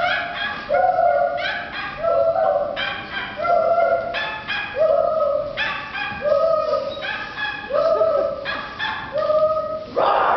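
Human voices making repeated short, high, yelping animal-like calls in a steady rhythm, about three every two seconds, some stepping up or down in pitch.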